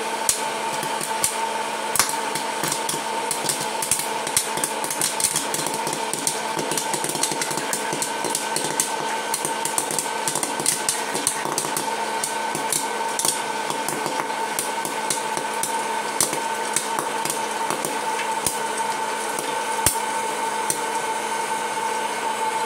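Orville Redenbacher hot-air popcorn popper running with a steady fan whine, while kernels pop in sharp clicks and popped corn drops into the bowl. The pops come thick and fast at first and thin out over the second half.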